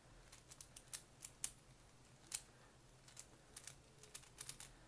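Tiny 30 mm Mofang Jiaoshi 3x3 keychain speed cube being turned with quick finger flicks of the bottom (D) layer: faint sharp plastic clicks in an irregular series.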